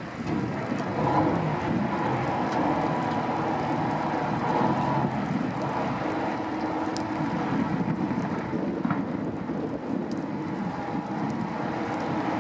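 Ice calving off the face of Blackstone Glacier, a tidewater glacier: a long, low, steady rumble of ice breaking and falling into the water, with a faint constant hum underneath.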